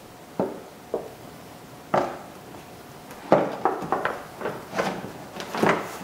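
Plastic splash shield under a car's engine bay knocking and rattling against the underbody as it is pushed up into place by hand, irregular sharp clatters that come thicker in the second half.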